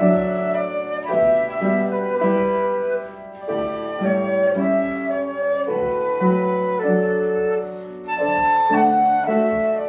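Flute playing a slow, songlike melody of held notes, with a short break in the phrase about eight seconds in.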